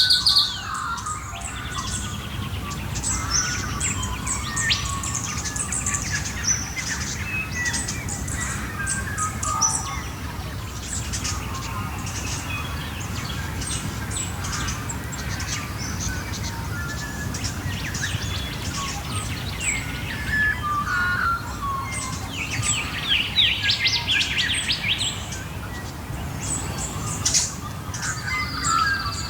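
A dawn chorus of many wild Australian birds chirping, whistling and singing over one another, with a dense run of quick calls about three-quarters of the way through, over a steady low background noise.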